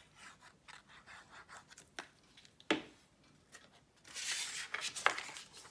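Tombow tape runner rolling adhesive along the edges of a piece of cardstock, with light repeated strokes and a sharp tap. Near the end comes a louder rustling scrape of the cardstock being handled.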